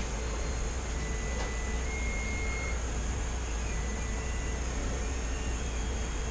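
Steady low electrical hum with faint thin whistling tones, a few of them gliding up and down.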